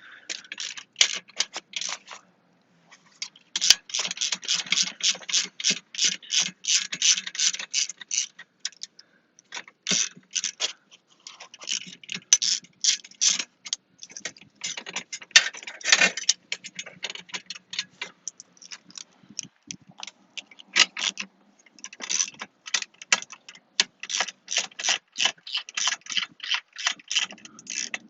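Hand ratchet wrench clicking as it backs out fasteners, in several runs of rapid clicks with short pauses between them.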